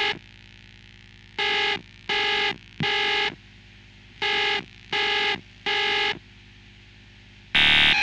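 Emergency alert system beeps: three groups of three short, buzzy electronic beeps over a faint steady hum. Near the end a louder, harsher alert tone begins.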